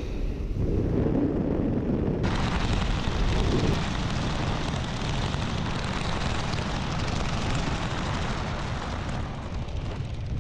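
Wind buffeting a helmet-mounted camera's microphone during a parachute descent, a steady rumble. About two seconds in a hissing rush of air joins it suddenly and eases off near the end, as the jumper nears the ground.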